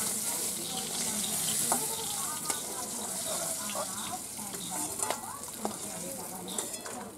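Pieces of fish sizzling as they fry in mustard oil in a metal pan, with a steady hiss. A metal spatula scrapes and clinks against the pan now and then as the pieces are turned.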